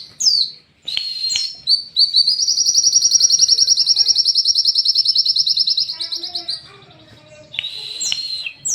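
Sunbirds singing: a few sharp, high falling notes, then a long, fast, high trill of about ten notes a second lasting some four seconds, then more sharp falling notes near the end.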